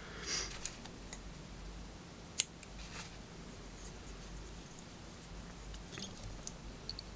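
Small fly-tying scissors cutting a clump of elk hair: one sharp snip about two and a half seconds in, with faint rustling of the hair and small clicks around it.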